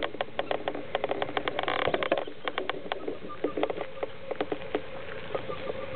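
Greylag geese and goslings grazing: a run of soft, quick clicks as bills pluck at vegetation, dense at first and sparser after about two seconds, with a few faint short peeps from the goslings.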